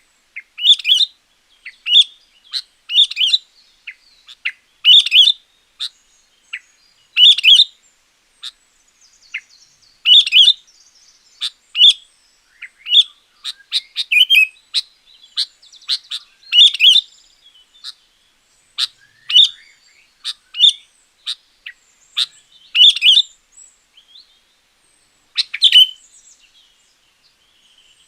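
Sooty-headed bulbul (kutilang) singing: short, loud, chirpy phrases repeated every second or two, with brief gaps between them.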